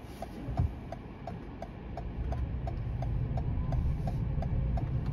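Car's turn-signal indicator ticking evenly at about three ticks a second, heard from inside the cabin. Low engine and road noise swells from about two seconds in as the car pulls away from the light and turns right.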